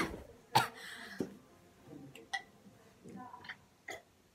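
A person's short, sharp breathy noises, two in the first second, followed by a few faint clicks and taps.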